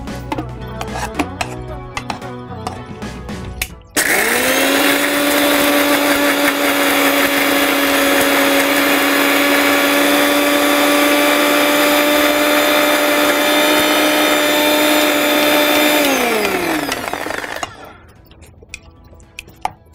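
Electric mixer grinder switched on about four seconds in, whining up to speed and running at a steady pitch for about twelve seconds while it grinds coconut and roasted gram into a thick paste. It is then switched off, and its pitch falls as it winds down.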